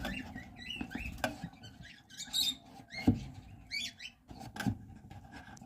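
Lovebirds chirping and squeaking in short high calls, with scattered clicks and knocks.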